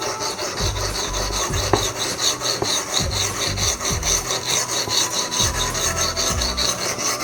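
A kitchen knife being sharpened on a medium-grit whetstone: quick, even back-and-forth scraping strokes, about three or four a second.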